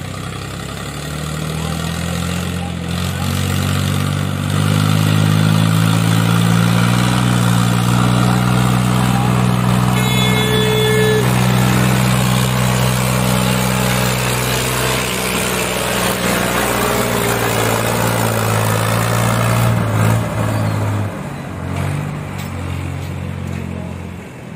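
Diesel farm tractor engines running under load as tractors haul trolleys heavily loaded with sugarcane past at close range. The engine sound grows louder a few seconds in, holds steady, then drops off and fades near the end. A short high-pitched tone sounds about ten seconds in.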